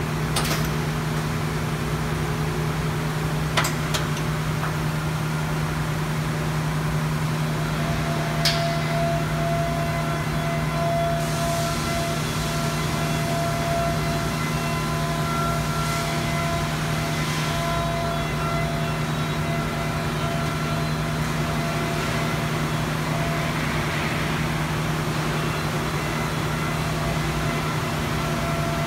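Industrial plastics-processing machinery running steadily: a constant low hum with a few sharp clicks in the first several seconds and a higher whine that comes and goes after that.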